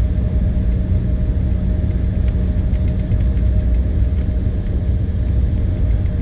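Cabin noise of an Embraer 175's twin General Electric CF34-8E turbofans, heard from inside the passenger cabin while the jet taxis: a steady low rumble with a constant engine hum and faint rattles.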